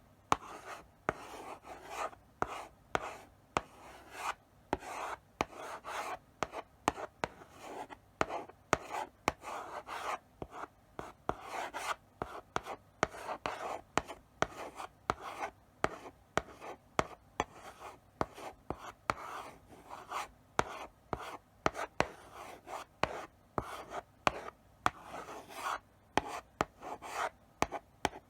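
Chalk writing slowly on a blackboard: scratchy strokes with frequent sharp taps as the chalk meets the board at the start of each stroke.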